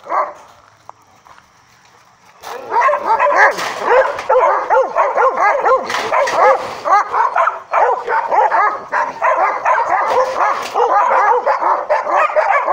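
A group of puppies yelping and whining all at once, many short overlapping high cries. They start about two and a half seconds in and keep on without a break.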